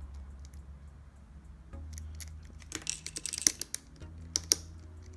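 Small sharp plastic clicks and clacks from handling a GAN 356 XS speedcube and its adjustment tool: a quick run of clicks about three seconds in, then two sharp snaps near the end, over a low steady hum.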